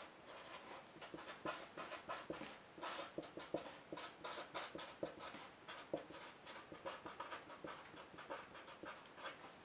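Felt-tip marker writing on paper: a faint, quick run of short scratchy strokes as block capital letters are drawn out one after another.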